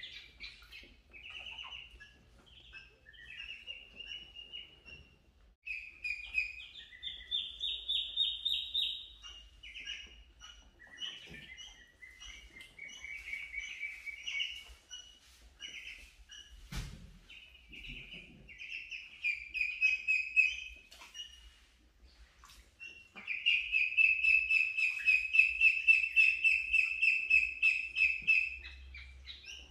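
A group of ducklings peeping: quick strings of high peeps in runs of a few seconds, the longest and loudest near the end. A single knock sounds about halfway through.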